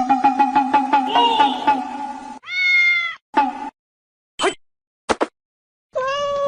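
Background music for about two seconds, then a domestic cat meowing: one long meow, a few short chirpy meows, and another long meow near the end.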